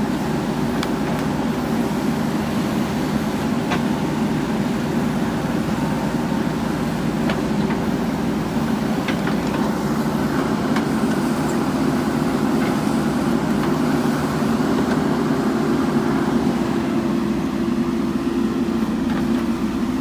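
JCB backhoe loader's diesel engine running steadily under work, with a few faint clicks over the hum.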